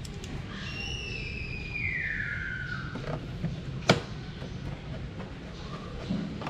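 Screwdriver work on a scooter's plastic floor panel: a sharp click about four seconds in, with a few fainter ticks, as a screw is set. Before it, a high whistle glides down in pitch over about two seconds.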